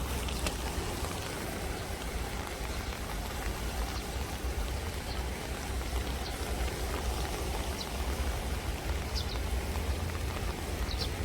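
Steady rain falling on the ground and into a flowing stream, with a few faint, short bird chirps in the second half.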